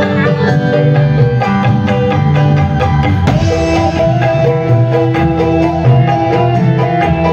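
Dangdut koplo band playing live through the stage PA, with a kendang hand-drum rhythm driving over sustained melodic notes, loud and continuous.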